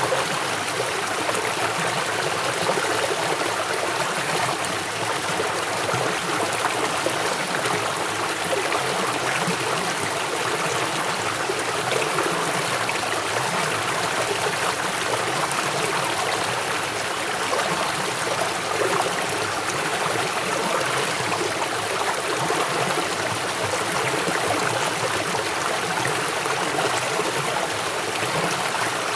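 River water flowing fast over rocks: a steady rushing and splashing.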